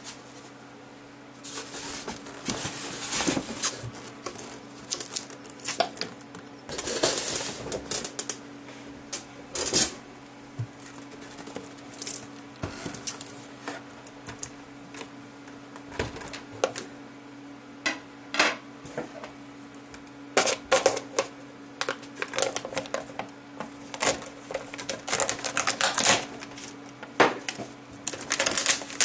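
Unpacking noises from a 3D printer's packaging: irregular clicks, knocks and short rustles of cardboard, foam and plastic wrap as the printer is handled out of its box and set on a bench, with plastic crinkling near the end. A faint steady low hum lies underneath.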